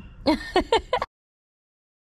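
A woman's voice briefly, in a few short broken sounds, then cut off to dead silence about halfway through.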